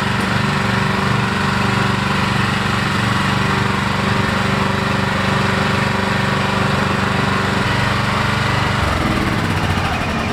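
Small gasoline engine of a homemade excavator running steadily, its note shifting about eight seconds in.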